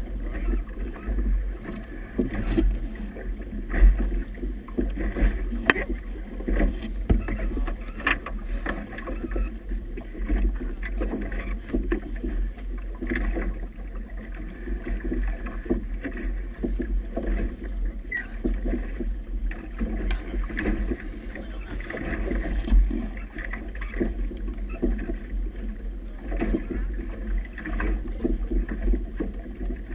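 Wind buffeting the microphone and choppy water slapping against a small boat's hull, with a constant low rumble and irregular knocks and splashes.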